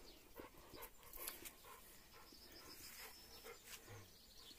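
Near quiet: faint sounds of an American bulldog close by, with a few soft scattered ticks.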